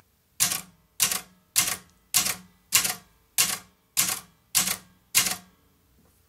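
Nine sharp clacks at an even pace, a little under two a second, each ringing briefly before the next.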